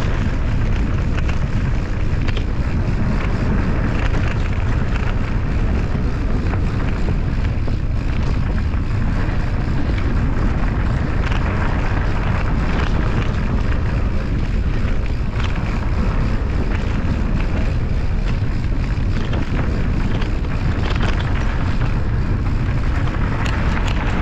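Wind buffeting the microphone of a camera riding on a moving mountain bike: a loud, steady rumble, with many small clicks and rattles scattered through it.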